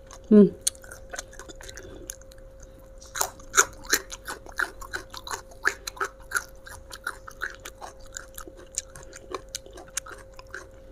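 Close-up chewing of raw old jengkol dipped in sambal, a run of crisp, irregular crunches. A brief falling hum of enjoyment from the eater about half a second in.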